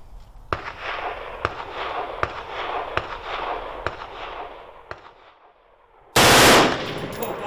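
Short burst of full-automatic fire from an M16 rifle, just under a second of continuous shots, the loudest thing here, about six seconds in. Before it come several fainter single gunshots about a second apart.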